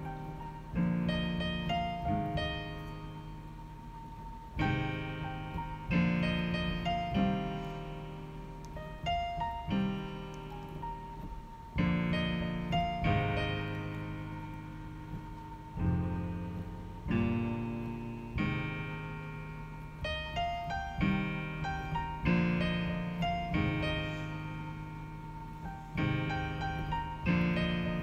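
Piano playing a slow medley of chords, a new chord struck every second or two and left to ring out.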